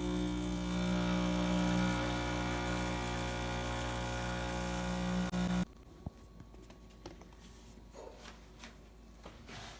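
Breville Dual Boiler espresso machine's vibratory pump running steadily as a shot is pulled, then cutting off abruptly a little past halfway. A few small clicks and knocks follow.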